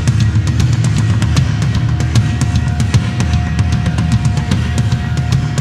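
Rock music soundtrack with a steady, driving drum-kit beat.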